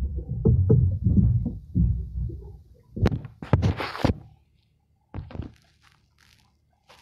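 Muffled low thumps and rumbling against the phone's microphone, then, about three seconds in, a loud burst of scraping and knocking as the phone is picked up and moved. After that only a few faint clicks.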